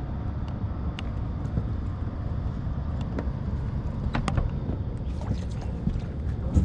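Steady low rumble of wind on the microphone and moving river water, with a few sharp clicks and knocks as heavy fishing rods are handled.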